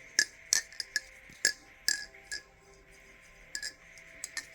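Thomas Balisong Refault butterfly knife being flipped, its handles and blade clicking together in a string of sharp metallic clicks, with a pause of about a second in the middle.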